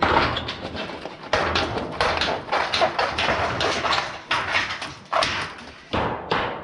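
Rapid, irregular knocks and taps, several a second with short pauses, from metal flashing being handled and fastened.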